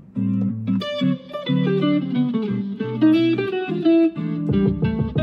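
Stratocaster-style electric guitar being played: held chords and a melody of single notes, with a quick run of short picked notes near the end.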